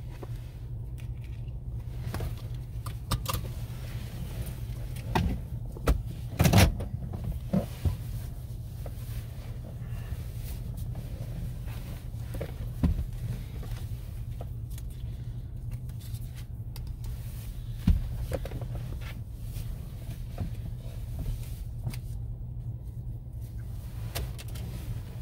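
Car engine idling, heard from inside the cabin as a steady low hum, with a few clicks and knocks of things being handled, the loudest about six and a half seconds in.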